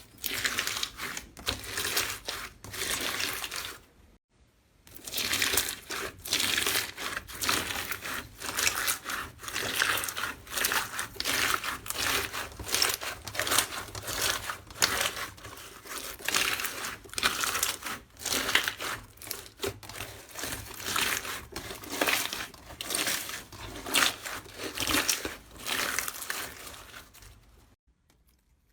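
Slime being worked by hand, giving a dense run of small clicks and pops. There is a short pause about four seconds in, and the sound stops shortly before the end.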